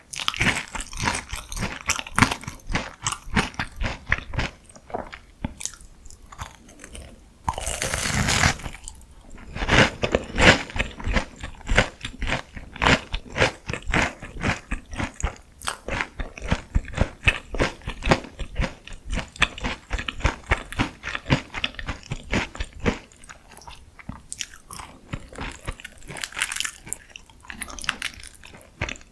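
Close-miked eating: crisp crunching bites and chewing of deep-fried food, a rapid, irregular series of sharp crunches, with a longer, denser crunching noise about eight seconds in.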